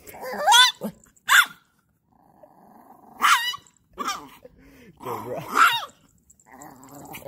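Dogs growling and barking in about five short bursts with gaps between them.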